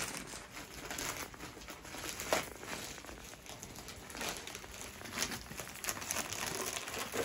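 Plastic courier mailer bag crinkling as it is torn open by hand and the plastic-wrapped item inside is pulled out, irregular rustles and rips throughout.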